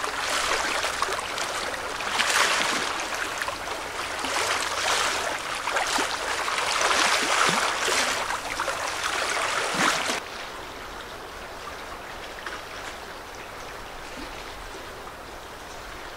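Small waves washing against a rocky shoreline, a splashing hiss that swells and fades in repeated surges. About ten seconds in it drops suddenly to a fainter, steady rushing.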